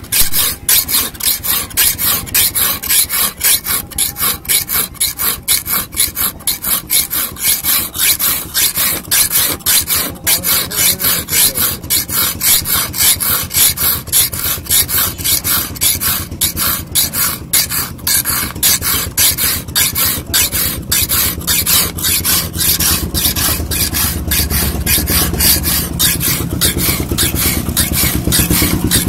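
A long steel hand file scraping back and forth across a hand-forged steel knife blade clamped in a wooden jig, shaping the blade, in quick, even, repeated strokes. A low rumble builds underneath in the last several seconds.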